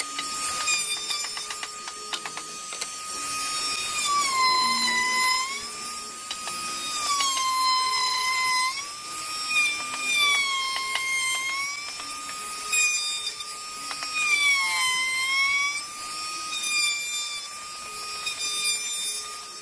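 Electric wood router running at full speed while cutting a groove in a wooden panel. Its high whine sags in pitch several times as the bit takes load in the cut, then climbs back as the load eases.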